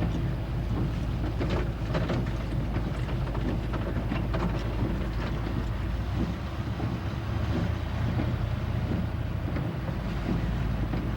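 Steady low rumble of a vehicle driving, with scattered crackles and wind buffeting the microphone.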